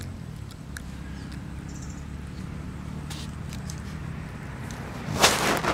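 A steady low mechanical hum, like a motor running, with a short loud noisy burst about five seconds in.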